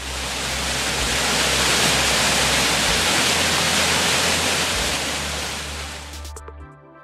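Waterfall cascading over rock ledges: a steady, loud rushing that swells in at the start and fades out about a second before the end.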